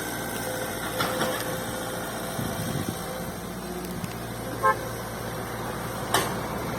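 Excavator engine running steadily, with a short horn toot about two-thirds of the way in and a sharp click near the end.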